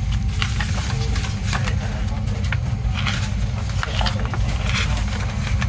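Packaging of a CD+DVD being handled: scattered short clicks and rustles of plastic and paper over a steady low rumble.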